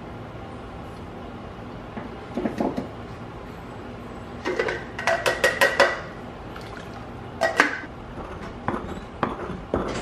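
Kitchenware clinking and knocking: a plastic hand citrus juicer rattled and tapped against its glass cup in a quick run of sharp clicks, the juice poured out, then a loud knock and a few more knocks of a stone pestle in a molcajete near the end.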